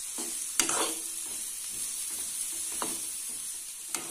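Sliced onions, curry leaves and green chillies frying in oil in a kadai, sizzling steadily. A steel ladle stirs them, scraping and clicking against the pan a few times.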